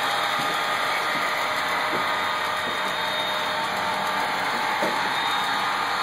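HO-scale model freight trains running on a layout: a steady whirring hum with a few faint, irregular clicks.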